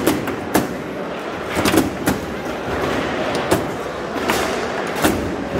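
Foosball play: the hard ball struck by the players' figures and rods knocking against the table, a rapid, irregular series of about eight sharp knocks over the murmur of a busy hall.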